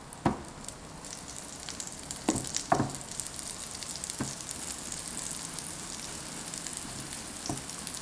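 Hot oil in a preheated griddle pan sizzling steadily under a disc of raw leavened flatbread dough just laid in, the sign that the oil is hot. A few light knocks come as the dough is set down and handled.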